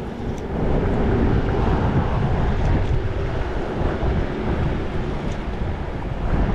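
Wind buffeting the microphone: a steady low rumbling noise with no clear events in it.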